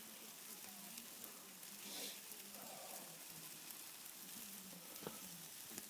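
Faint sizzling and crackling of an open wood fire with chicken cooking over it, a steady hiss dotted with small pops, as the fire is just catching flame.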